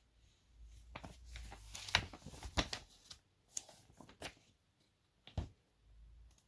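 Paper pages of a booklet being handled and leafed through: a run of rustles and sharp crinkles, loudest about two seconds in, with a few single paper snaps later.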